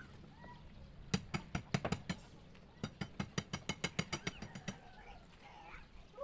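Hammer blows on wooden column formwork, nailing the form boards: a ragged cluster of strikes about a second in, then a fast even run of about six blows a second that stops a little before the end. Faint bird calls sound in the quieter stretches.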